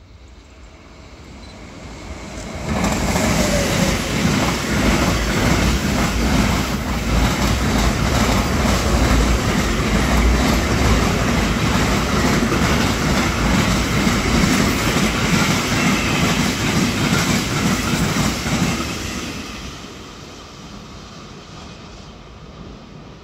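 Container freight train hauled by an E494 electric locomotive passing close by: the noise builds over the first few seconds as the locomotive arrives, then a long steady rumble and clatter of the wagon wheels on the rails, dying away in the last few seconds as the end of the train goes by.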